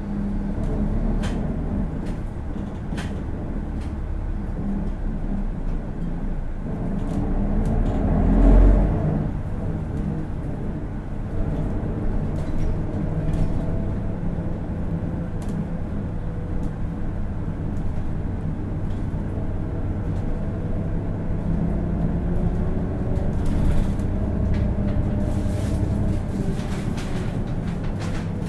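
A 2003 Hino Blue Ribbon City KL-HU2PREA diesel city bus running, heard from inside the cabin: a steady low engine drone with road noise, swelling briefly about eight seconds in.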